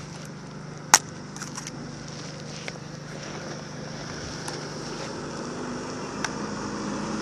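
Vehicle engine running and slowly getting louder as it approaches. A sharp click comes about a second in, with a few lighter clicks and rattles after it.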